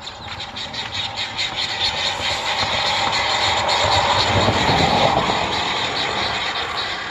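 A road vehicle passing by, growing louder to a peak about four to five seconds in, then fading away.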